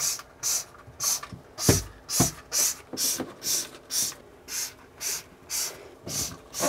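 Trigger spray bottle squirting bleach spray in short hissing bursts, about two a second, with a couple of soft knocks about two seconds in.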